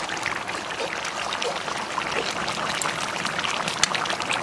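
A pan of fish curry with potato and brinjal bubbling at a steady boil: a continuous hiss of simmering liquid with small scattered pops.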